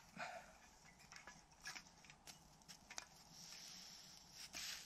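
Near silence with a few faint, scattered clicks and a soft hiss near the end.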